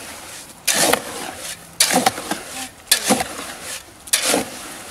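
Shovel scraping and churning through wet concrete mix in a plastic wheelbarrow tub, four strokes about a second apart.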